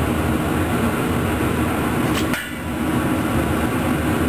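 Beef roast sizzling in hot wine and onion juices in a stainless steel pot on a gas burner: a steady, dense crackle, with one short knock about two seconds in.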